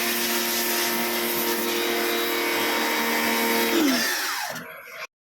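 Kawasaki pressure washer running steadily, a motor hum over the hiss of the spray. About four seconds in it is switched off and the hum falls in pitch as it winds down, and the sound ends abruptly about a second later.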